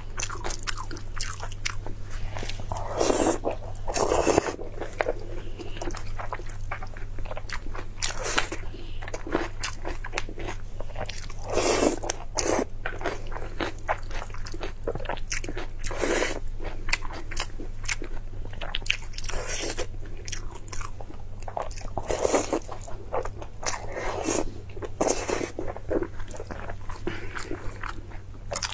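Close-miked mouth sounds of a person eating soft food: chewing and biting, with louder bites every few seconds, over a steady low hum.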